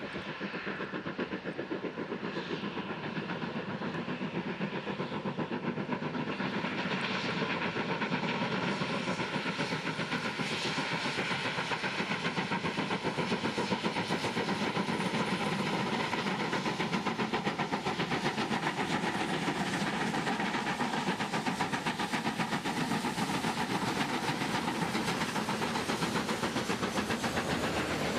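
Steam locomotive working hard, its exhaust beats coming fast and close together, growing louder over the first several seconds and then holding steady.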